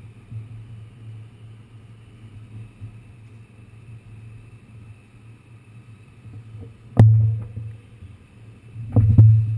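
New York City subway car running with a steady low rumble. Two sudden loud bangs cut through it, about two seconds apart, the second a quick double knock.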